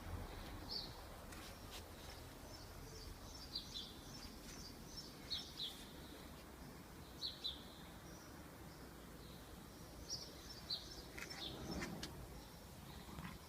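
Faint small-bird chirping: short, high chirps, often two in quick succession, every second or two over a steady background hiss.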